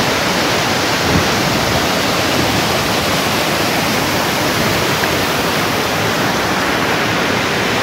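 Mountain stream rushing and splashing down over boulders in small cascades, a steady, loud, full rush of falling water close to the microphone.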